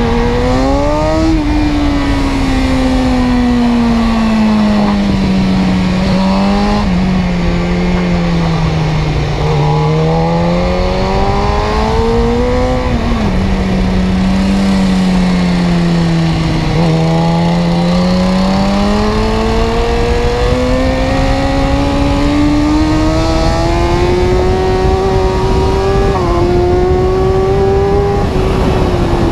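Car engine running under way, its steady pitched note rising and falling slowly with engine speed, with a few sudden drops and jumps in pitch.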